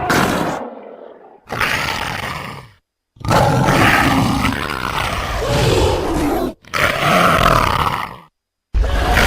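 Designed creature roars and growls for the extinct giant gelada baboon Theropithecus oswaldi, layered from leopard and baboon calls. They come as a string of separate calls, the longest about three seconds, each cut off abruptly by a short silence, and a fresh roar starts near the end.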